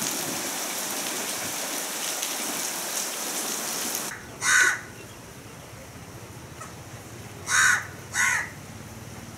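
Heavy rain pouring down as a steady hiss, which cuts off after about four seconds. Then three loud crow caws over quieter ground: one just after the rain stops, and two in quick succession near the end.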